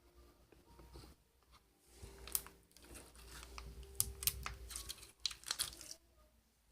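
Slime being squeezed and poked by hand, giving a quick run of sticky clicks and crackling pops through the middle, with a few louder pops among them.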